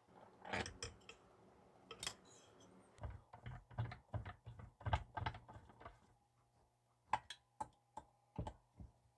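Faint clicks and knocks of a hand tool and metal parts on a chainsaw body being reassembled: a run of quick knocks, then single clicks about twice a second near the end.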